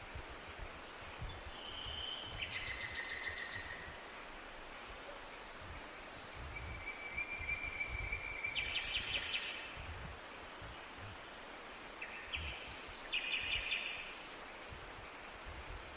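A songbird singing three phrases, each a clear held whistle running into a fast trill, over a low rumble of wind.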